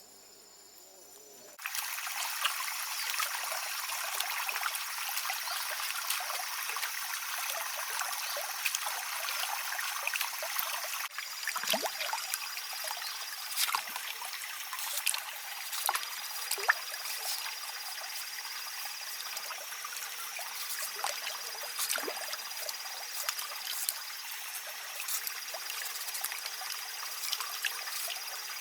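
Water trickling steadily, like a small forest stream, starting suddenly a second or two in. In the second half a thin, high, steady tone comes and goes over it, with scattered light clicks.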